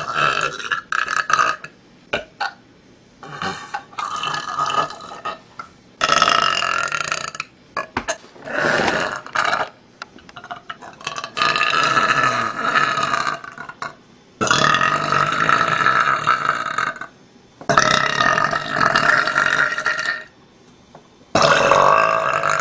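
A young woman burping loudly, one burp after another: about eight long drawn-out belches, most lasting one to three seconds, with short pauses between them.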